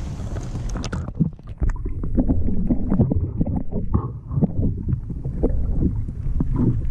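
Water splashing at the surface, then from about a second in the muffled sloshing and knocking of water heard with the camera under the lake surface, as a hand lets a largemouth bass go.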